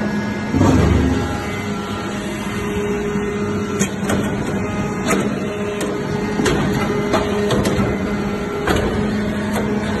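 Hydraulic metal-chip briquetting press running: its hydraulic pump unit hums steadily, with a louder low surge about a second in. Scattered short mechanical clicks and knocks follow.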